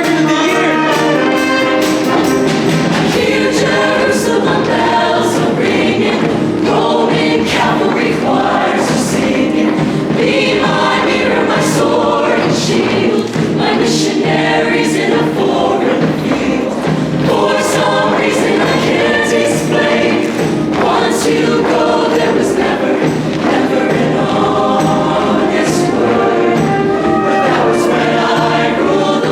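High school show choir singing in full harmony over live band accompaniment, with sharp percussion hits throughout.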